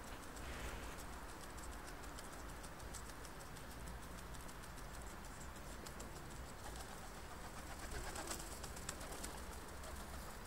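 Pigeons cooing softly, over a steady low background hum with faint ticking.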